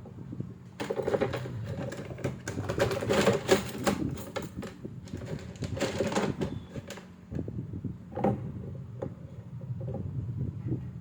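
Rapid, dense clicking and rattling of hand tools against a circuit board as a component is worked off it, from about a second in until about seven seconds, then a few lone clicks.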